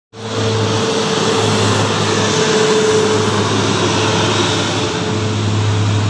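Large tour bus driving past with its engine running: a loud, even noise with a steady low hum throughout.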